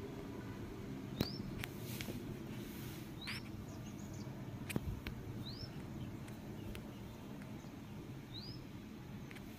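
A bird's short rising chirp, heard four times two to three seconds apart, over a steady low hum, with a few sharp clicks.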